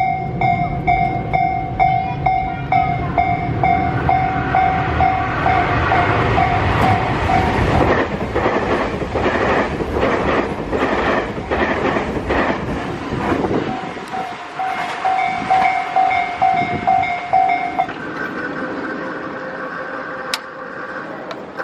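Japanese level-crossing warning bell ringing its rapid repeated tone as a Tobu electric train rumbles through the crossing, its wheels clacking over the rail joints for several seconds. The train's noise drops off suddenly about 14 seconds in, and the bell rings on a few seconds more before stopping.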